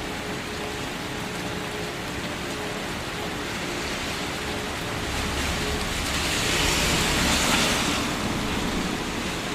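Steady rain falling. From about halfway through, a louder rushing swell with a low rumble builds, peaks, and fades away before the end.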